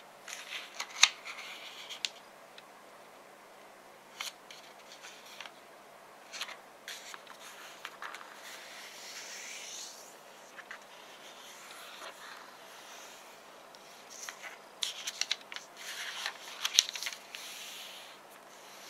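A sheet of origami paper handled and folded by hand: crinkling and rustling as it is lifted and folded, sharp paper clicks, and a longer scraping stroke as fingers press a crease flat. The handling is busiest at the start and again near the end.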